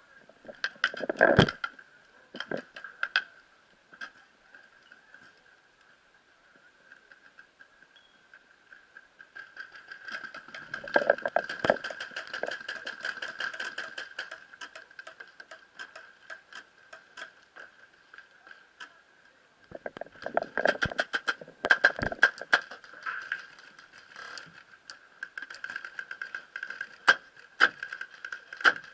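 Scattered sharp pops of paintball markers firing, with two busier stretches of shots and movement noise about ten and twenty seconds in, over a steady high-pitched tone.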